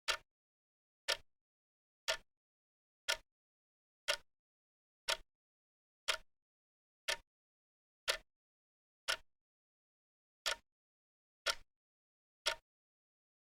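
Wrist watch ticking close up, one crisp tick about every second, the one-step-per-second beat of a quartz watch's second hand, with silence between ticks.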